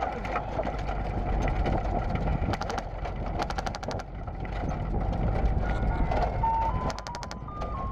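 A vehicle drives along, and three short bursts of rapid full-auto airsoft fire come at about 2.5, 3.5 and 7 seconds in. Near the end a simple electronic jingle of single notes stepping upward begins: ice-cream-truck music from the vehicle.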